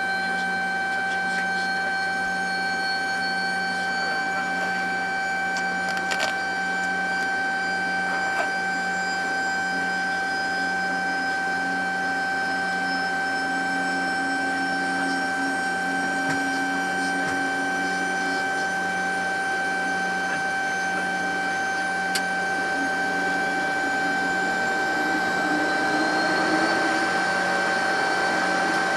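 Steady high whine and hum of the Handley Page Victor's running aircraft systems heard inside the cockpit during its engine-start sequence, with a fainter whine slowly rising in pitch and the noise building slightly near the end. A few faint clicks.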